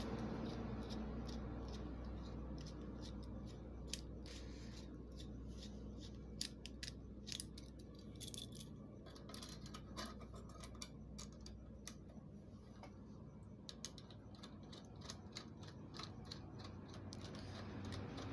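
Small metallic clicks and clinks from a steel worm-drive hose clamp being handled and its screw turned with a screwdriver. They come irregularly, starting a few seconds in, over a faint low hum.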